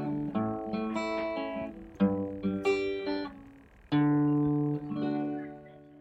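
Background music: plucked guitar notes and chords, each ringing and dying away, fading out near the end.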